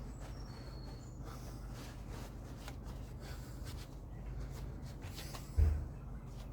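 Faint clicks and rustles of hands handling things over a low steady rumble, with one dull thump about five and a half seconds in.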